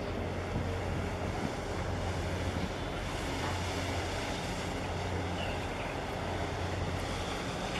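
Steady wind noise on the microphone, a constant low rumble, with waves washing at the breakwater.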